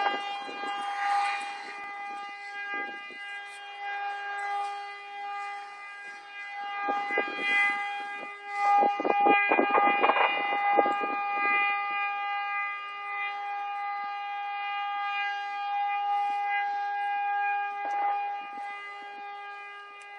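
An air horn held in one long, steady note. Scattered bangs of gunshots and fireworks sound over it, in a rapid cluster about halfway through and once more near the end.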